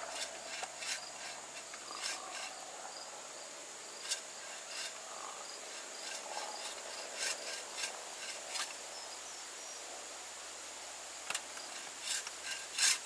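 Hand bow saw cutting into a tree trunk in short, uneven rasping strokes, with pauses between bursts of cutting. A steady high insect drone runs underneath.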